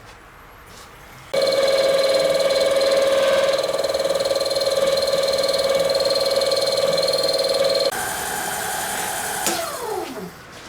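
A workshop machine's electric motor starts and runs with a steady whine of several pitches, changing tone about eight seconds in. Near the end it is switched off and winds down, its pitch falling.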